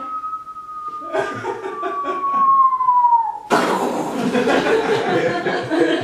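A person whistles one long tone that slowly falls in pitch, imitating objects dropping through the air. About three and a half seconds in, it cuts to a sudden loud mouth-made crash noise, with laughter.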